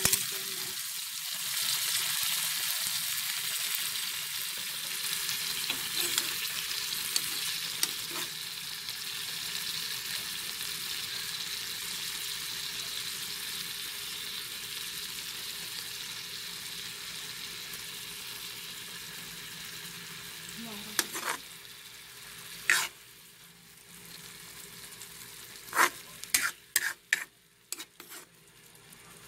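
Minced garlic sizzling in olive oil in a frying pan. The sizzle slowly dies down. Several sharp clicks come in the last third.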